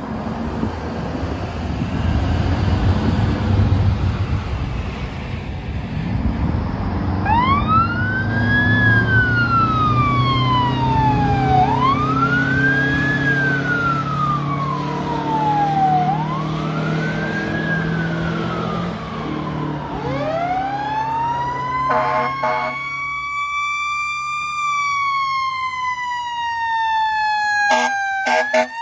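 A fire truck's diesel engine runs as it pulls away, then its siren starts wailing, rising quickly and falling slowly about every four and a half seconds. A slower wail follows, broken by short horn blasts about two-thirds of the way through and again near the end.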